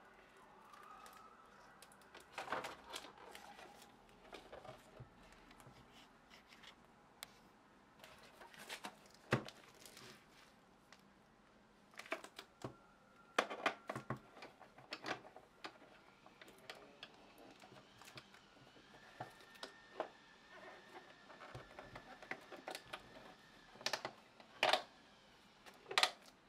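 Handling noise from a plastic-wrapped video projector and its gooseneck mount being turned over and fitted by hand: irregular clicks and taps with short rustles of plastic film, the sharpest clicks near the end.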